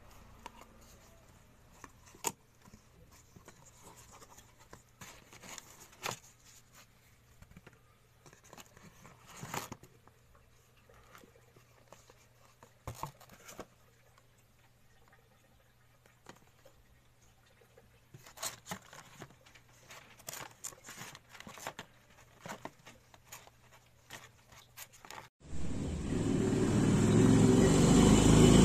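Soft, scattered rustles and clicks of a cardboard shipping box and product packaging being handled and opened. About 25 seconds in, a much louder, steady rumbling noise cuts in.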